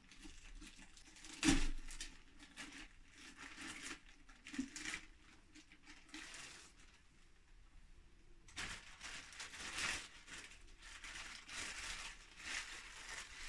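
Packaging rustling and crinkling in irregular bursts as gear is unpacked, with a single sharp knock about a second and a half in and busier rustling in the second half.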